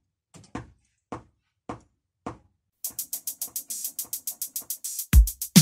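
Drum-machine beat being built up: a single snare hit on each beat about every half second, then fast bright ticks about seven a second join just under three seconds in, and deep kick drums come in near the end.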